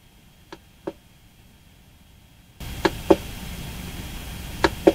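Three pairs of short clicks from pressing the control knob on an Ender 3D printer's display, the last two pairs louder than the first.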